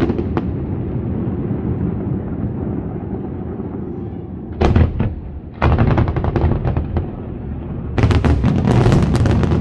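Aerial fireworks going off: shells bursting with a low rumble carrying on between bursts, a short cluster of bangs near the middle, and a rapid string of crackling bangs near the end.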